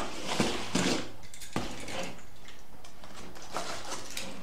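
Handling noise from LED headlight bulbs and their wiring being moved about on a cardboard box: a few sharp knocks and clicks in the first second and a half, then lighter taps and rustling.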